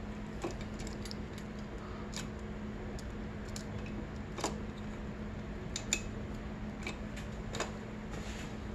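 Light metallic clicks and clinks of a motorcycle cam chain being lifted and shifted on the camshaft sprocket in an open cylinder head, about ten scattered clicks with the loudest about halfway through, over a steady low hum.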